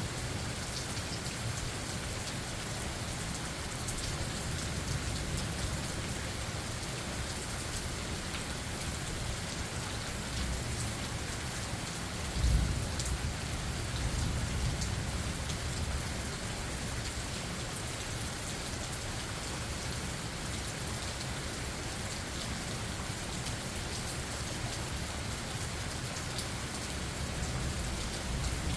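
Steady rain falling in a forest, with a short low rumble of thunder about halfway through.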